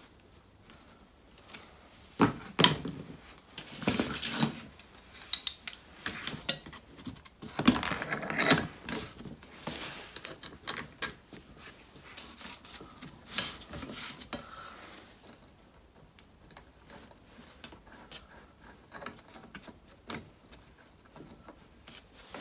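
Irregular clinks, taps and scrapes of small metal parts being handled: a screwdriver working a jubilee clip and steel jig plates being fitted onto an anti-roll bar drop link. Busiest in the first half, thinning out after about fifteen seconds.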